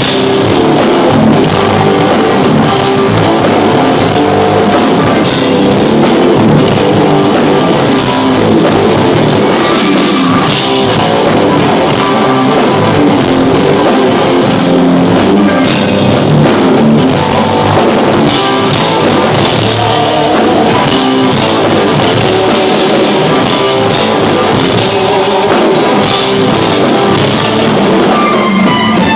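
Loud live instrumental rock: electric guitars over bass and a drum kit, playing continuously without a break.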